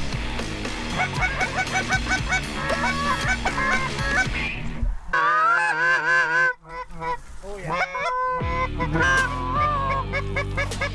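A flock of Canada geese honking, many short honks overlapping continuously, with a run of louder, closer wavering calls about halfway through.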